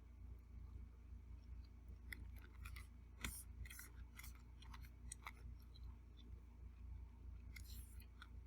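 Quiet eating sounds: a run of soft clicks and crackles starting about two seconds in and lasting a few seconds, then another short burst near the end, over a low steady hum.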